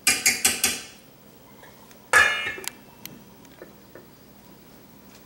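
A fork tapping four quick times on the rim of a stainless steel skillet, then one louder metal clank of cookware about two seconds in.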